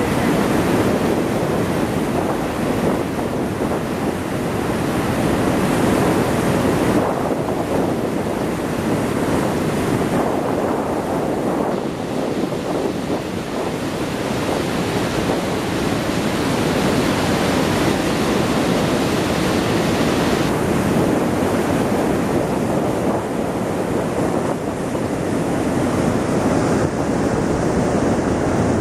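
Fast, high river water rushing through a dam sluice and down rocky rapids, a steady loud rush of white water.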